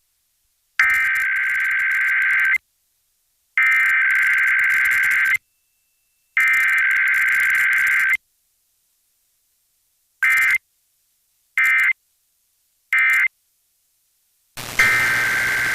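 Emergency Alert System SAME digital header: three identical data bursts of nearly two seconds each, a second apart, followed by three short end-of-message bursts. Near the end, another long data burst begins over radio static.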